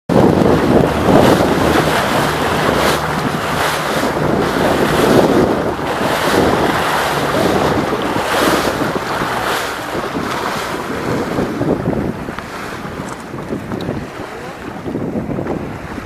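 Water rushing and splashing against the hull of a small boat moving over open sea, with heavy wind buffeting the microphone. It gets quieter about three-quarters of the way through.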